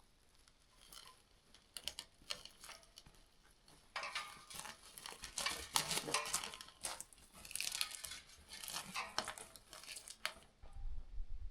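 Light clattering knocks and rustling as things are handled, sparse at first and busier from about four seconds in.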